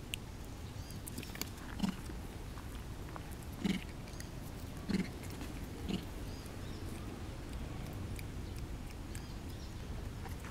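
Long-tailed macaques giving four short, low grunts spread over several seconds, with faint scattered clicks over a steady low rumble.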